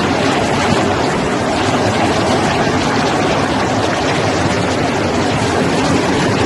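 Chicken-feet yellow-skin peeling machine running: a loud, steady mechanical din with no distinct rhythm.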